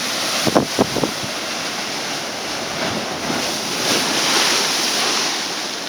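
Ocean waves crashing and washing over reef rocks, a surge swelling to its loudest about four seconds in, with wind buffeting the microphone.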